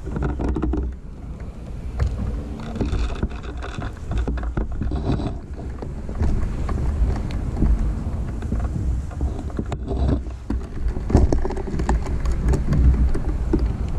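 Steady low rumble of wind and handling noise on a body-mounted action camera's microphone, with scattered knocks and rustles of movement.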